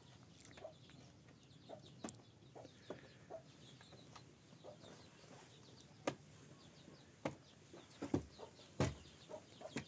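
Chickens clucking on and off, with faint bird chirps. In the second half come a few sharp wooden knocks, the loudest near the end, as a wooden ladder is shifted against a concrete-block wall.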